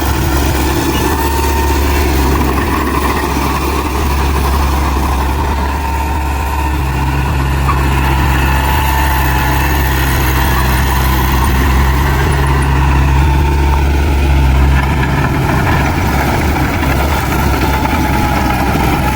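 Heavy diesel engine of earthmoving machinery running steadily with a loud, deep hum.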